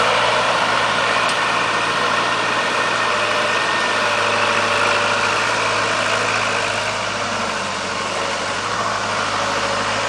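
Skid steer loader's engine running steadily, with a steady low hum under a broad mechanical noise. It eases off slightly about three-quarters of the way through.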